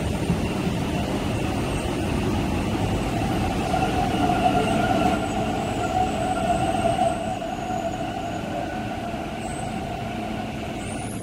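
MTR East Rail Line R-train electric multiple unit pulling into the platform and braking to a stop, a steady rumble with a high whine. The whine is loudest in the middle and eases off about seven seconds in as the train halts.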